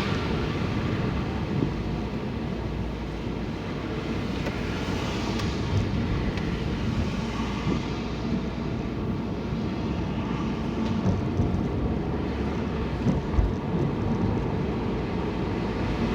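Steady rumble and road noise of a vehicle travelling along a road, with a few brief knocks.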